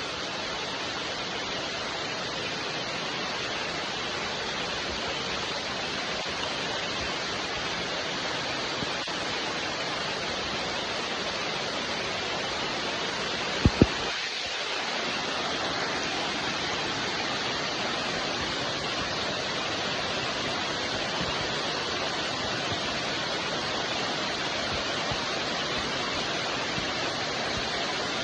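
Steady, even rain hiss. About halfway through, two sharp clicks in quick succession are the loudest sound, with a brief dip in the low end right after.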